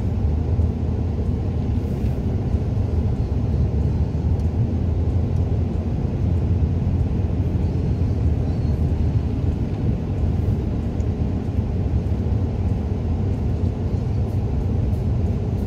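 Steady low rumble of a car driving on a snowy road, its engine and tyres heard from inside the cabin.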